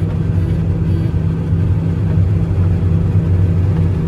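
John Deere 9750 STS combine's 325 hp diesel engine and threshing machinery running steadily under load while harvesting wheat, a constant low hum heard from inside the cab.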